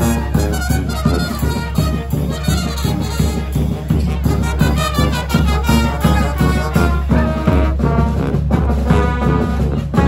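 A street brass band playing live: sousaphones, trombones, trumpets and saxophone over a steady bass-drum beat.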